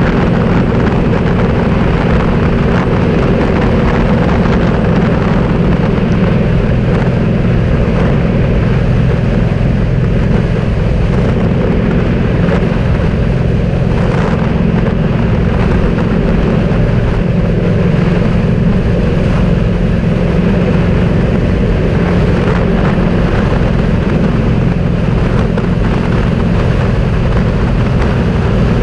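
Steady drone of a vehicle driving at an even speed, its engine and road noise mixed with a rush of wind from the sandstorm.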